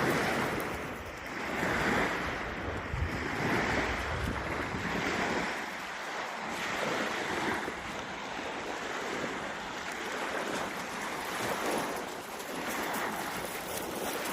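Ocean surf breaking and washing up the shore in repeated swells every couple of seconds, with wind rumbling on the microphone during roughly the first half.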